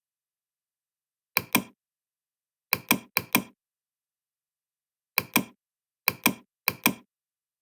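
Six pairs of sharp clicks against dead silence, each pair two quick clicks about a fifth of a second apart, the pairs coming at uneven intervals.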